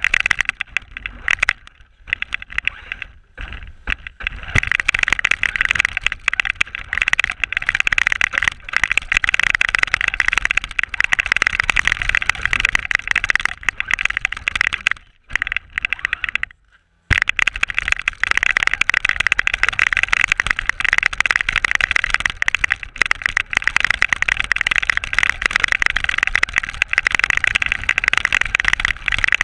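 Radio-controlled car's motor and gears whining steadily as it drives through snow, with rumbling from the bumps. The whine drops out briefly about two and three seconds in, and again for about two seconds past the halfway point.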